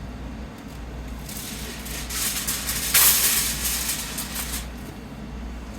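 Aluminum foil rustling and crinkling as it is pulled off and worked over a baking dish, with a sharp, louder crackle about three seconds in.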